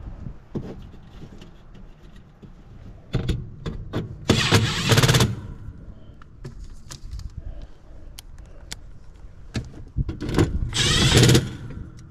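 Milwaukee Fuel cordless driver run twice in short bursts of about a second each, driving screws into the unit's sheet-metal panel, with small clicks of handling between the runs.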